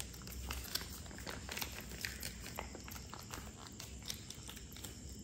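A hungry kitten eating, with small, irregular clicks and smacks of chewing.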